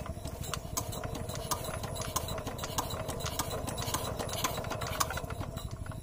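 Small stationary engine driving an irrigation water pump, running steadily with a rapid low chugging and sharp, irregular clattering ticks over a steady hum.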